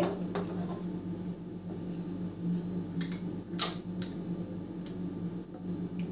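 Wooden spoon scraping and knocking against a non-stick pan as a thick tomato chutney is scooped out into a bowl: a few short clicks and scrapes, the two loudest about three and a half and four seconds in, over a steady low hum.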